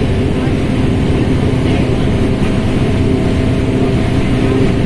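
Mercedes-Benz OF1721L BlueTec5 bus's diesel engine running steadily, with no clear rise or fall in revs.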